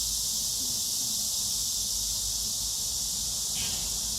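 Steady, high-pitched insect chorus droning without a break, with a low rumble underneath.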